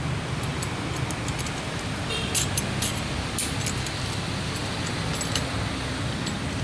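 Small metallic clicks and jingles from air-hose quick-coupler fittings being handled and snapped together, clustered in the middle, over a steady machine hum.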